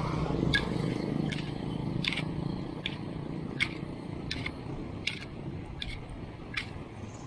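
A bicycle ridden along a road, giving a sharp regular tick about every three-quarters of a second, in step with the pedalling. Under it runs the low hum of a motorcycle engine, loudest in the first couple of seconds and then fading away.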